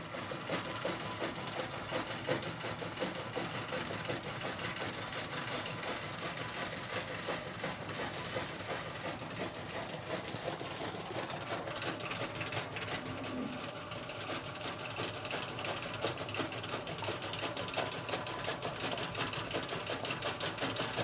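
Many rabbits chewing fresh greens: a dense, steady run of rapid crunching clicks.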